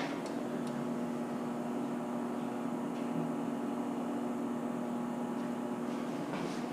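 Steady electrical hum from a well pump control panel, with a few constant tones over a light hiss, as the pump is run again after its overload settings were changed.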